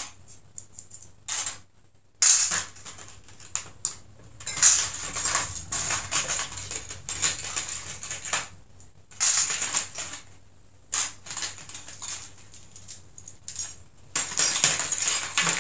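Small metal swing-top bottle cap parts (wire bails, collars and stoppers) clinking and rattling against each other and the tray as they are picked through by hand. The clatter comes in irregular bursts with short pauses.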